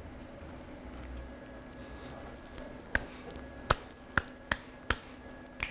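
About six sharp hand claps, unevenly spaced, beginning about halfway in, over a faint steady hum.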